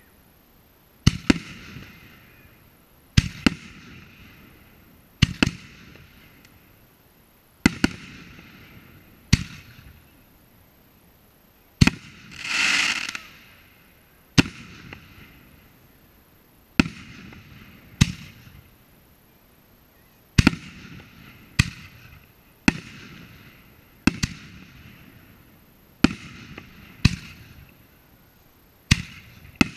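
Aerial firework shells going off in a steady sequence: sharp bangs every one to two seconds, some in quick pairs, each with a fading tail. About twelve seconds in comes a longer rushing burst lasting a second or so.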